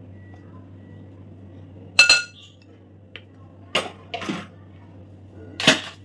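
A kitchen utensil striking a glass mixing bowl: one sharp ringing clink about two seconds in, then softer knocks and rustling, and another sharp knock near the end.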